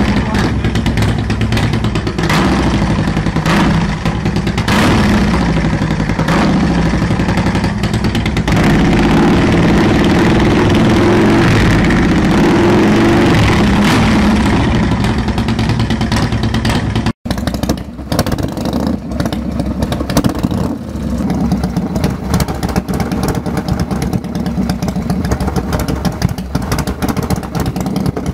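V-twin cruiser motorcycles revved hard with flamethrower exhausts. The first bike is blipped with sharp bangs from the exhaust, then held at high revs for several seconds. After a sudden cut, a second bike's exhaust pops and crackles rapidly as fuel ignites in the pipes and shoots flames.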